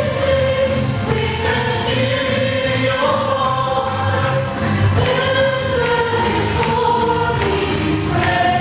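Mixed choir of men and women singing a gospel hymn in unison, held notes moving between pitches, over a steady instrumental bass accompaniment.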